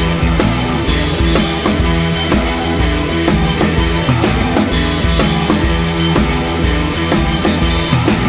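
Rock-style background music with a drum kit keeping a steady beat.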